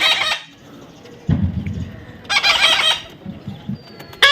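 Baby parrot squawking: three loud, harsh calls, one at the start, one about two and a half seconds in, and one at the end.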